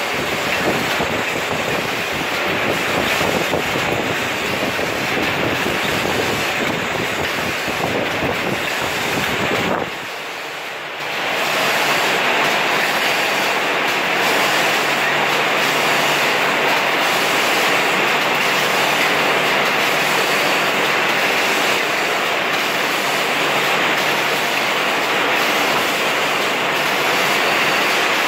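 Automatic cap coating and printing machine running at about 45 caps a minute, a steady mechanical clatter. It dips sharply for about a second, some ten seconds in, then carries on.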